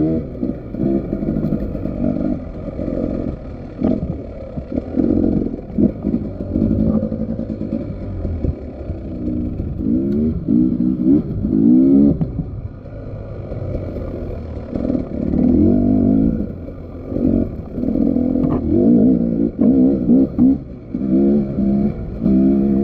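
Motorbike engine revving up and down with the throttle, its pitch rising and falling every second or two, with occasional knocks.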